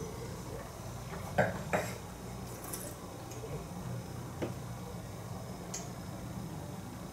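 A wine glass set down on a wooden tabletop, two short knocks about a second and a half in, then a softer tap later, while red wine is swirled around in the mouth.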